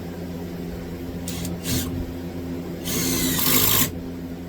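Power drill driving a screw into a 2x4 board: two short bursts, then a run of about a second, over a steady low hum.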